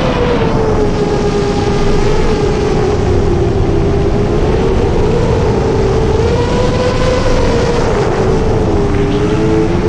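A 7-inch FPV quadcopter's brushless motors (Brother Hobby 2507 1500KV) and 7040 tri-blade props whining in flight. The pitch drifts up and down with throttle over a steady rush of wind noise, and near the end the tone splits into two close pitches.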